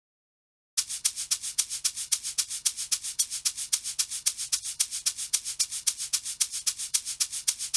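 A programmed shaker-style percussion loop from an amapiano beat playing on its own in FL Studio. It is fast and even, about seven crisp strokes a second, with no kick or bass under it. It starts abruptly about a second in.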